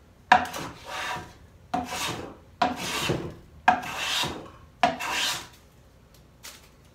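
Metal bench plane taking light passes along a wooden drawer side: five strokes, each with a sharp bite and a shaving swish, then it stops. The passes are fitting a drawer that is just barely too wide.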